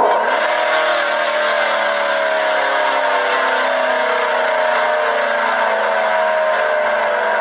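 Emergency alert siren tone: several tones sounding together, starting abruptly and gliding slowly and steadily down in pitch.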